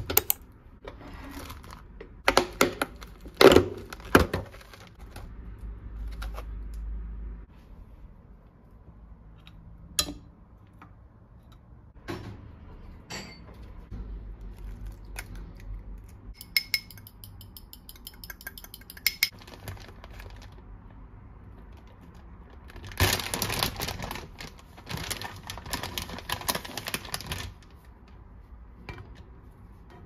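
Kitchen handling sounds: a glass butter dish and a plastic food container knocked and set down on a granite countertop, with sharp clinks in the first few seconds. Later come lighter clinks and quick ticking, then a few seconds of rustling, like plastic food packaging being handled.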